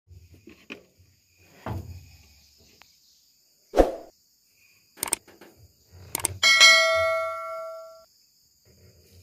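Steel hand tools knocking and clinking against the excavator's metal parts, a few separate sharp knocks. About two-thirds of the way through comes one strong clang that rings clearly for a second and a half before dying away. A faint high insect drone runs underneath.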